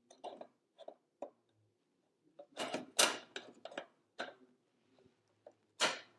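Irregular small clicks, taps and short scrapes of hard parts and tools being handled, with two louder strokes about three seconds in and near the end.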